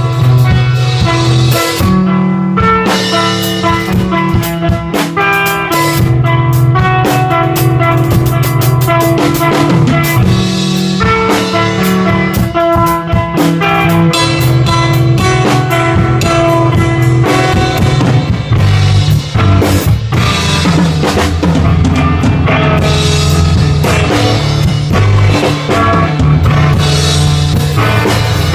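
A drum kit and electric guitar playing together: frequent drum and cymbal strikes under held guitar notes that change every second or two.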